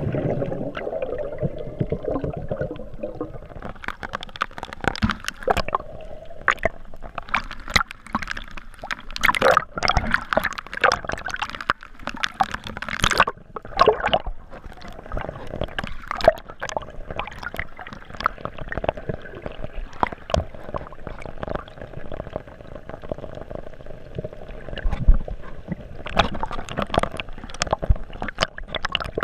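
Water splashing and gurgling close to the microphone, with many irregular sharp clicks and knocks.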